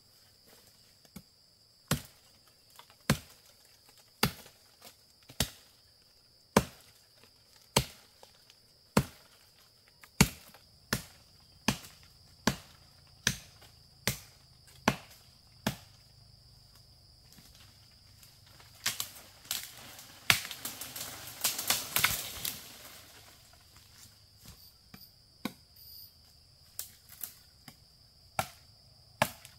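Wood being chopped with a blade: sharp strokes about one a second, stopping around the middle, then a few seconds of dense crackling and rustling and a few scattered knocks.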